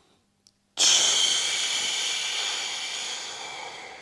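A man's long, forceful exhale through the mouth, part of a breathing exercise. It starts suddenly about a second in as a hiss and fades slowly over about three seconds.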